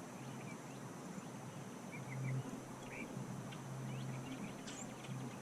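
Faint outdoor ambience: a steady low hum, with a few short bird chirps about two to three seconds in.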